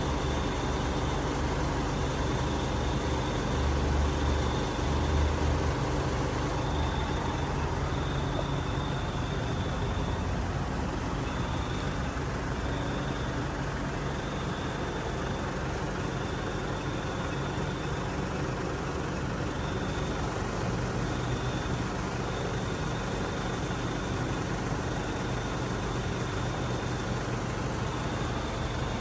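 A motor vehicle's engine running steadily with road or engine noise, joined by a faint high-pitched tone that cuts in and out irregularly.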